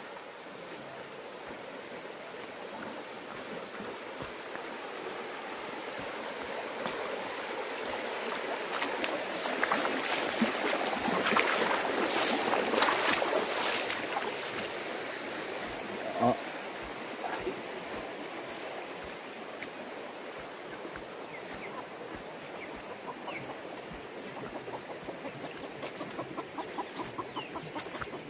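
Rushing stream water that swells as it is approached and crossed, then fades, with a short animal call, like a chicken's cluck, a little past halfway. Footsteps on a muddy path tick steadily near the end.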